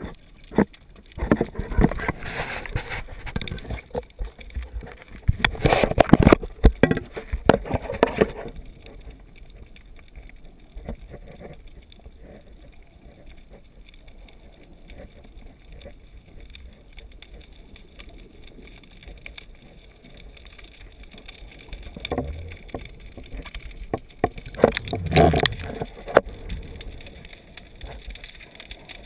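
Muffled underwater noise recorded through a camera housing while the freediver swims: three spells of louder rushing water and clicking or knocking, the last about twenty-two seconds in, with a quieter steady hiss between them.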